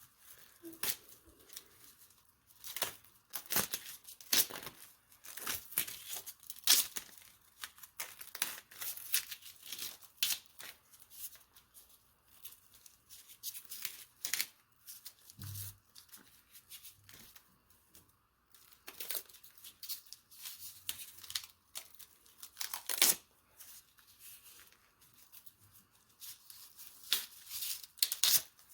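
Plastic packaging being handled and pulled open, with quick irregular crinkling and tearing bursts.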